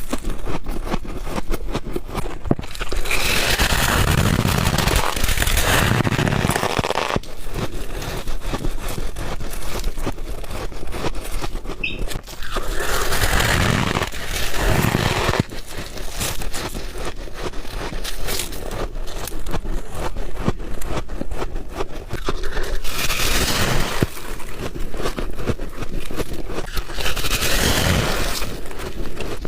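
Close-up chewing of ice: a dense, continuous crackle of crunching. Louder stretches of bites and chews come about three seconds in, around thirteen to fifteen seconds, and twice near the end.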